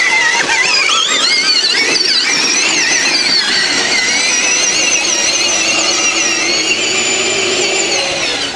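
Electric drive motors and gearboxes of a modified four-wheel-drive Power Wheels Jeep whining, climbing in pitch over the first few seconds, then holding with a wavering pitch, and fading shortly before the end.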